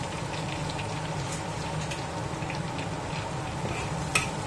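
Minced garlic and chopped chilies sizzling in hot oil in a wok, frying until fragrant, stirred with a metal spatula that scrapes and clicks against the wok now and then, with a sharper clink near the end. A steady low hum runs underneath.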